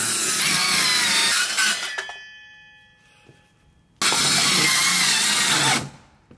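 Cordless circular saw cutting through wooden decking boards. It is released about a second and a half in and spins down with a fading whine. It starts again abruptly about four seconds in, runs for nearly two seconds and stops.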